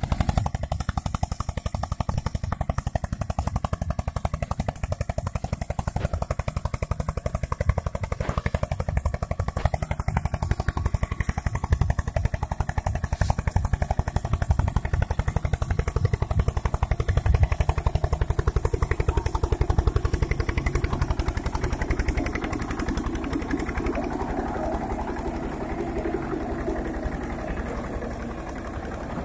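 Eicher tractor's diesel engine running steadily under heavy load as it pulls a 9-foot rotavator through dry soil. In the last several seconds, as the tractor comes close, the churning clatter of the rotavator's blades in the dirt comes through more.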